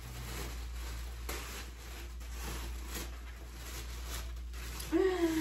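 Rustling and crinkling of plastic packaging as clothes are unwrapped and handled, in irregular small crackles. A brief murmured voice sounds near the end.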